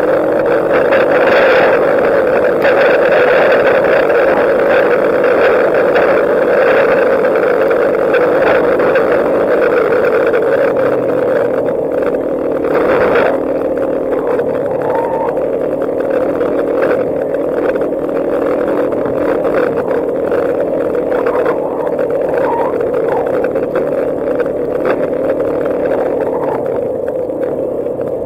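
Quad (ATV) engine running steadily while the quad is ridden along a dirt trail.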